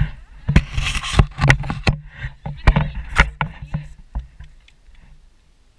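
A small engine running with a jumble of sharp knocks and rattles, like an ATV jolting over rough ground; it dies away about four and a half seconds in.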